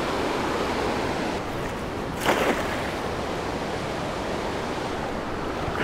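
Steady rush of river water flowing around a wader, with one sharp splash a little over two seconds in as a thrown cast net lands on the water.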